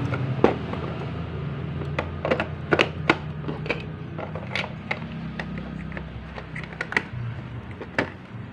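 Batteries being pushed into a portable radio's plastic battery compartment and the battery cover fitted back on: a string of irregular clicks and plastic knocks.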